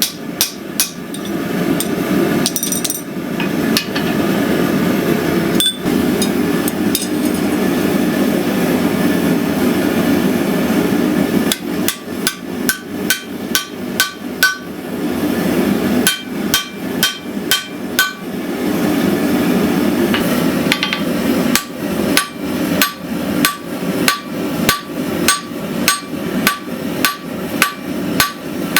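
Hand-forging Damascus steel: ringing hammer blows on the anvil, about two a second, in runs near the start, in the middle and through the last third. Between the runs a steady roar, the forge running while the piece reheats.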